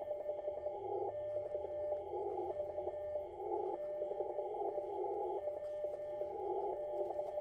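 Morse code (CW) signal received on an Icom IC-7300 HF transceiver: a single steady tone keyed on and off in dots and dashes, inside a narrow band of receiver hiss left by the CW filter. The spacing between characters is weird, which makes it hard to copy.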